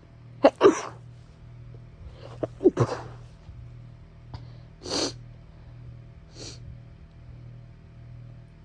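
A person sneezing twice, each sneeze starting with a sharp catch, then two shorter breathy bursts, the second softer: tickly sneezes from an itchy nose.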